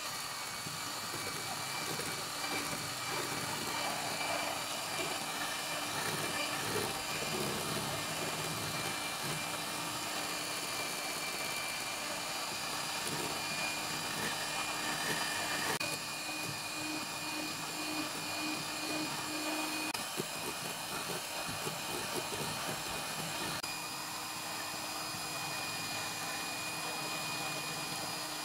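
Moulinex electric hand mixer running steadily, its beaters whipping eggs and icing sugar until pale and fluffy. The motor hum holds an even pitch and cuts off suddenly at the very end.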